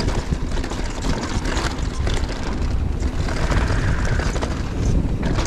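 Wind rumbling on the camera microphone while a mountain bike descends at speed, with the tyres rolling over the dirt trail and the bike rattling in quick, uneven clicks.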